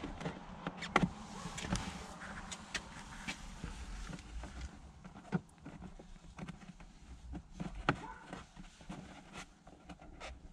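Scattered light clicks and taps with rustling, from a cable being worked into a car's headliner and plastic interior trim by hand; the sharpest click comes about a second in.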